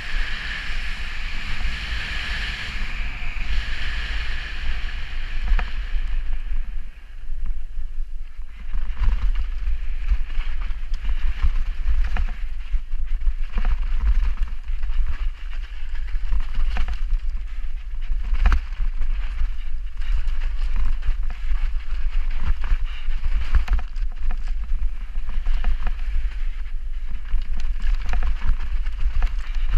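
Mountain bike descending a rough dirt trail at speed: wind buffets the microphone with a constant low rumble, tyres hiss over the ground, and frequent knocks and rattles come from the bike hitting bumps.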